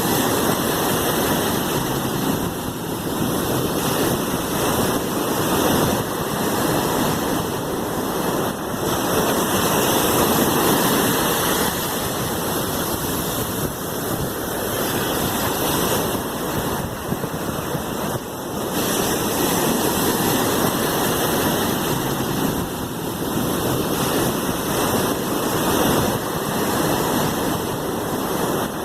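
Sea waves washing in a continuous, dense rush of water, swelling and easing in loudness every few seconds.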